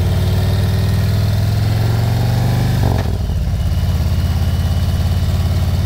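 Harley-Davidson Road Glide Special's V-twin engine running under way, a steady low exhaust drone. About three seconds in the note changes and softens slightly.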